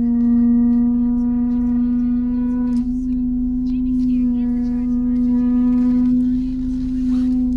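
Range Rover Evoque's rear brakes giving a steady, loud low-pitched moan with overtones, a brake noise that is still there after a repair.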